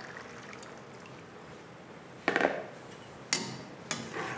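A slotted spatula stirring chickpeas and water in an aluminium pan: after a faint steady hiss comes a short sloshing scrape a little past halfway, then two sharp clinks of the spatula against the pan.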